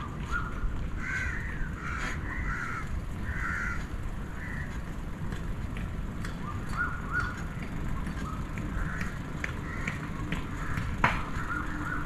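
Crows cawing in short repeated calls, several caws in a row with brief pauses between the runs, over a steady low background noise.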